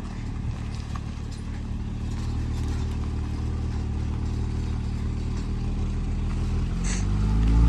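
2020 Toyota Supra engine idling steadily while its cooling system is bled after a coolant fill, then starting to rev up near the end.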